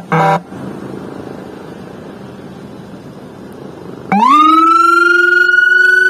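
Whelen 295SDA1 dual-tone electronic siren winding up about four seconds in: a fast-rising wail that levels off into a loud, held two-tone note. Before it, a few short horn blasts end about half a second in, then only low background noise.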